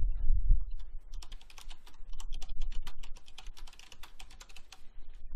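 Computer keyboard being typed on: a quick, uneven run of keystroke clicks, after a low thud at the very start.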